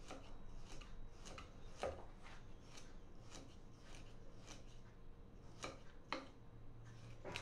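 Kitchen knife drawn in short strokes through a piau fish on a wooden block, cutting a fillet off: faint scraping cuts, about two a second.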